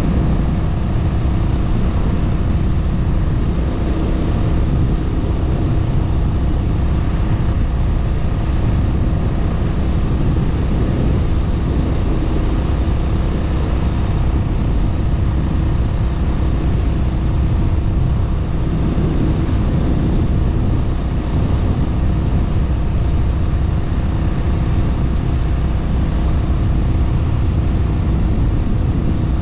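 Honda Rebel 1100 DCT's parallel-twin engine running steadily at highway cruising speed, with heavy wind rush on the microphone over it.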